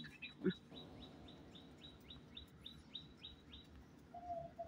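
A bird calling faintly: a run of quick, falling chirps, about four a second, that stops after three and a half seconds, then a lower, repeated call near the end. A brief low sound about half a second in.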